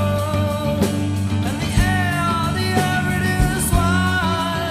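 Rock song: a band with electric guitar, bass and drums under a singing voice.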